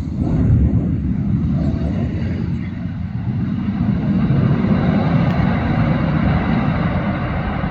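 Cessna Citation II twin-turbofan business jet's engines making a loud, steady low rumble at a distance during its landing rollout.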